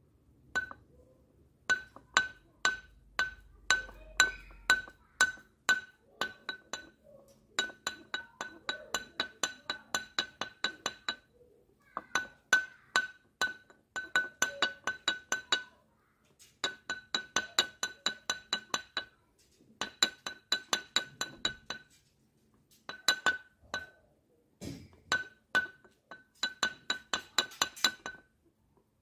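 An old upturned clay flowerpot struck over and over with a hard object, each hit ringing with a clear bell-like pitch. The strikes come in runs of quick taps, up to about five a second, broken by short pauses.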